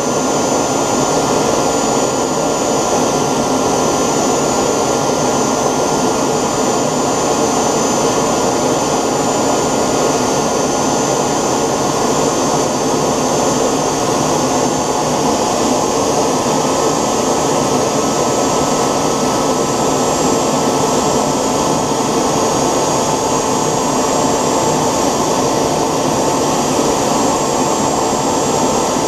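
3D-printed model gas turbine jet engine running steadily: a loud, even rushing with a steady high whine over it.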